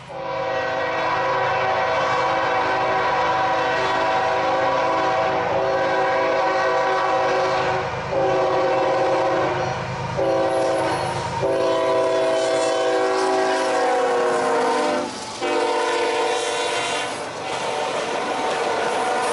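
Horn of a Norfolk Southern GE ES44AC locomotive sounded as a series of chords: a long first blast, then several shorter ones separated by brief gaps. The pitch drops as the locomotive goes by. The rumble and clatter of the RoadRailer trailers rolling past lies under the last blasts.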